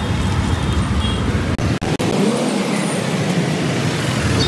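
Steady roadside traffic noise, cutting out for an instant twice about two seconds in.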